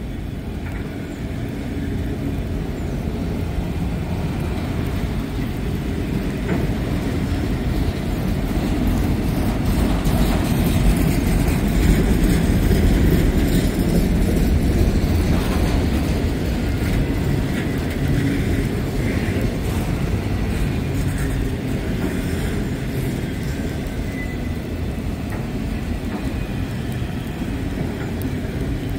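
A slow freight train of auto rack cars rolling past, a steady low rumble of wheels on rail that grows to its loudest about twelve seconds in and then eases a little.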